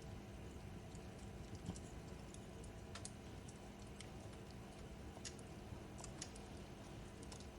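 Fireplace crackling: irregular sharp snaps and pops over a low, steady rush of the burning fire.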